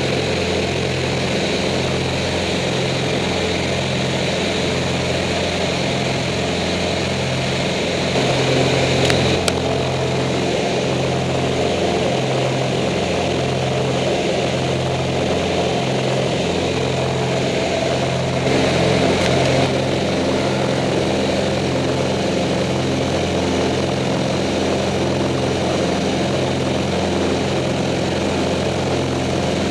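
A Cessna O-2A's twin Continental IO-360 piston engines and propellers, front and rear, drone steadily in cruise, with a slow, regular pulsing beat in the engine note. A rushing noise swells briefly twice, about a third of the way in and again about two-thirds of the way in.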